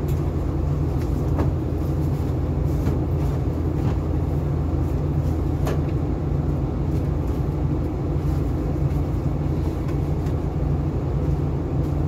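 Steady low machinery hum inside a cargo ship's walk-in refrigerator, with a few faint knocks as produce and crates are handled.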